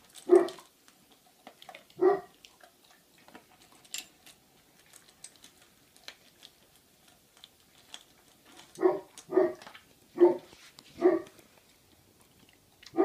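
A dog barking in short single barks: one near the start, one about two seconds in, a run of four from about nine to eleven seconds, and one more at the very end. Between the barks come faint clicks of dry kibble against a steel food bowl.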